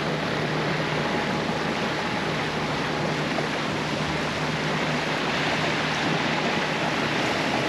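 Steady rush of water along a Catalina 42 sailboat's hull as it motors, with the inboard diesel engine's low, even hum underneath.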